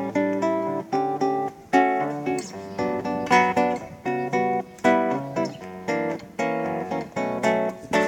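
Acoustic guitar strummed in a steady rhythm, with sharp chord attacks every half second to a second and the chords ringing in between.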